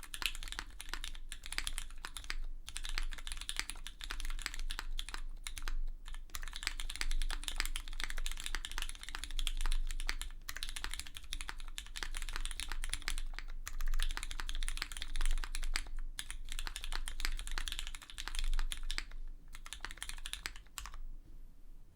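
Continuous typing on a Monokei Kei mechanical keyboard with broken-in, lubed and filmed Cherry MX Hyperglide Brown tactile switches on a full aluminium plate, in a brass-bottomed case with case foam. A fast, dense run of keystrokes with a few short pauses, stopping about a second before the end; the uploader finds the recording still picks up sound from the desk.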